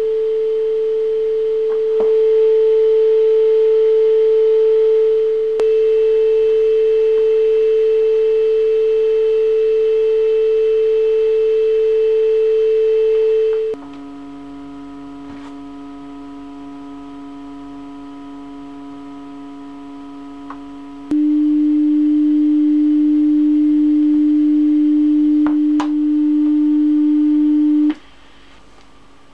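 Steady pure sine-wave test tones. A single tone near 440 Hz holds for about fourteen seconds. Then a quieter chord of lower steady pitches, the tones set in a 1:3 ratio, gives way to a louder single low tone that cuts off suddenly near the end, with brief clicks at some of the changes.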